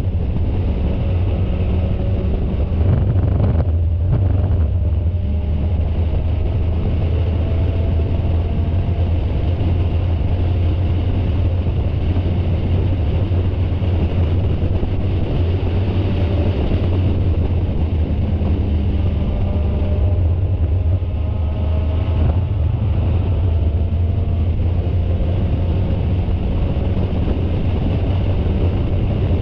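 Onboard sound of a Spec Miata race car at speed: the Mazda Miata's four-cylinder engine running hard under a heavy low rumble of wind buffeting on the camera microphone. The engine note climbs slowly and drops back a few times as the car pulls through the gears.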